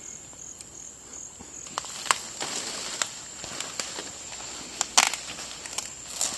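Rainforest insects keep up a high, thin drone, pulsing at first and then steady, while leaf litter and twigs crackle and snap in scattered bursts, typical of people walking over the jungle floor.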